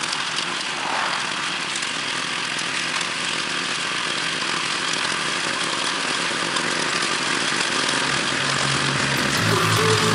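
Walk-behind rotary tiller's small engine running under load as its tines churn soil, a steady mechanical noise that grows louder near the end as the tiller comes closer.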